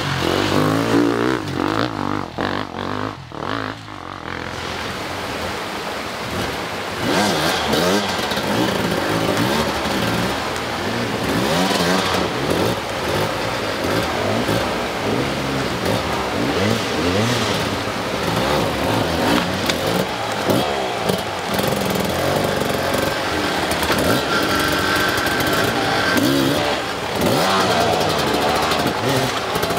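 Off-road dirt bike engine revving up and down again and again in throttle blips, its pitch constantly rising and falling, with a quieter stretch about two to four seconds in.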